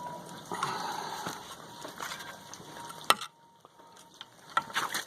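Small knocks and scraping as the replacement paddle is handled on the salt spreader's auger shaft, with one sharp metallic click about three seconds in and a few lighter clicks near the end.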